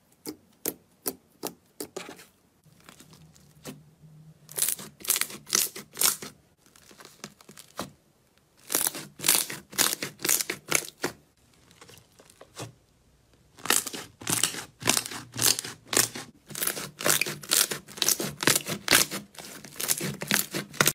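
Slime pressed and kneaded by hand, giving off sticky pops and crackles: a few separate pops at first, then quick runs of many pops.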